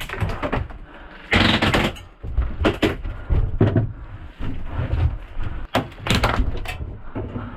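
Airsoft guns firing in short, irregular bursts, mixed with knocks and thuds.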